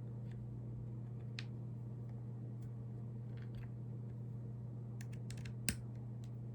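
Scattered small clicks and ticks of little metal parts and a hex driver being handled while screwing the tie-rod parts into an RC car's aluminium steering, with a quick cluster of clicks near the end, one sharper than the rest. A steady low hum runs underneath.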